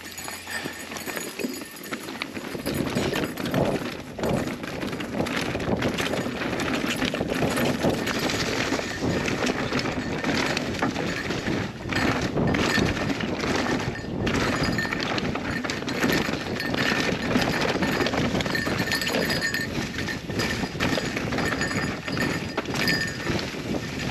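Mountain bike riding down a dirt forest trail: tyres rolling over dirt and leaf litter with a constant clatter and knocking from the bike over the bumps, growing louder after the first couple of seconds.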